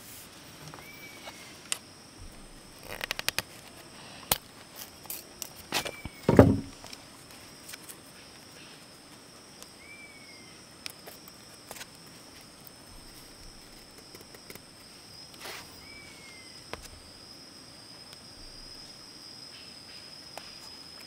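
Forest ambience: a steady high insect drone, with a short rising-and-falling bird call every few seconds. In the first seven seconds comes a run of sharp clicks and knocks, the loudest a heavy thump about six seconds in.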